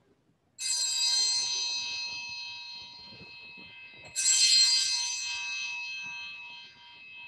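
Altar bells (Sanctus bells) rung at the elevation of the chalice after the consecration: two rings about three and a half seconds apart. Each strikes suddenly and dies away slowly in many high, overlapping tones.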